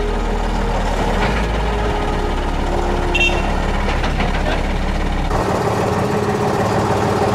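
Big truck's engine running with a steady low rumble. The deepest part of the rumble drops away suddenly about five seconds in.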